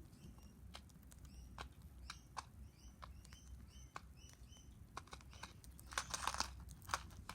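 A bird pecking at food in a pan: faint, irregular sharp taps of its beak. About a second in comes a run of short, quick chirps, each a small dropping note.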